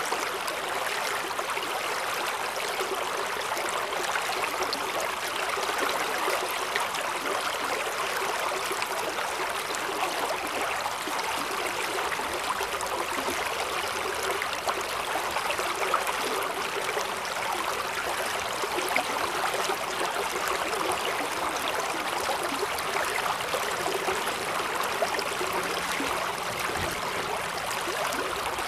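Mountain valley stream rushing over rocks: a steady, even rush of water with small splashes and gurgles in it.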